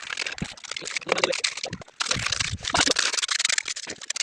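Gritty scraping and crunching of wet concrete being poured and worked into plank shuttering, louder in the second half.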